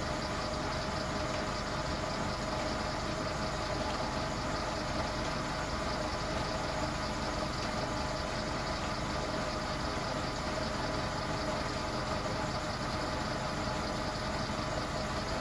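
GBI Powerunit generator running under load: a steady machine hum with a few faint steady tones, staying even as the lamp load comes on.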